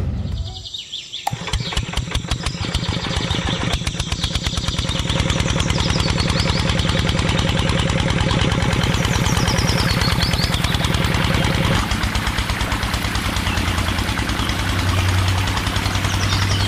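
A small motor driving a miniature model water pump, running steadily with a fast, even chugging pulse like a small engine idling. A short whoosh comes at the very start.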